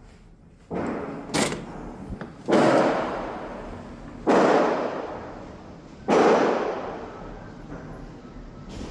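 Heavy thuds from construction work: four big blows roughly two seconds apart, each ringing out for about a second, with a sharper crack shortly after the first.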